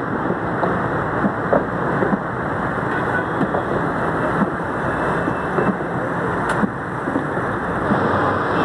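Steady noise of road traffic on a busy city main road, with a few faint knocks scattered through it.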